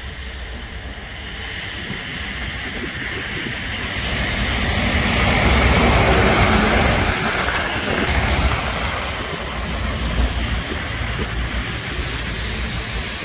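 Semi-trailer truck passing close on a snow-covered highway: a wide rush of tyre and engine noise swells, peaks about six seconds in and fades away, over a steady low rumble of wind on the microphone.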